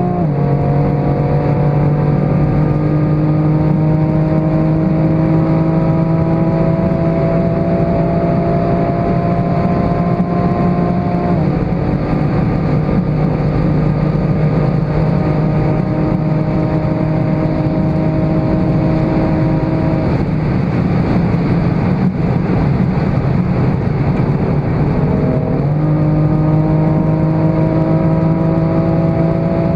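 BMW M4 Competition (F82) twin-turbo 3.0-litre straight-six under hard acceleration at autobahn speed, heard from inside the cabin. It shifts up just after the start and again about 11 seconds in, the note climbing slowly between shifts. About 20 seconds in the throttle is lifted and only wind and tyre noise remain for about five seconds, then the engine comes back in with a quick rise in pitch and pulls steadily again.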